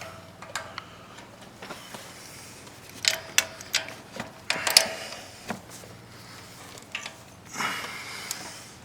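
Wrenches and hand tools clinking and scraping on the metal of an ATV's engine while its starter is unbolted: a run of sharp clinks a few seconds in, some with a short metallic ring, then a longer scrape near the end.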